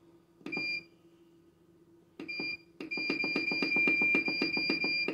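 Electronic beeps from a Cuisinart ice cream maker's control panel as its buttons are pressed. There are two short beeps, then from about three seconds in one long beep with rapid ticking, about nine a second, as the timer is held and run up to the set time.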